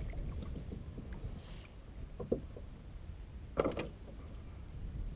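Kayak paddle being shifted across a Wilderness Systems Ride 115 sit-on-top kayak, knocking on the plastic hull: a light knock about two seconds in and a louder, brief clatter about three and a half seconds in, over a low steady rumble.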